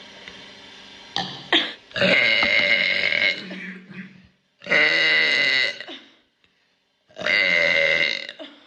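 A person belching three times, each a long, loud burp of about a second. The first starts about two seconds in.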